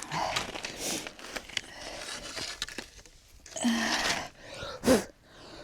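Heavy breathing with a couple of short voiced sighs, mixed with crunching and rustling noise.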